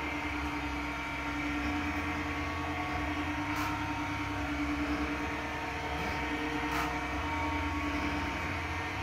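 Electric motor of a toy hauler's powered bed lift running steadily as it raises the bed, a constant hum with a whine that stops about eight seconds in, and a couple of faint ticks from the mechanism.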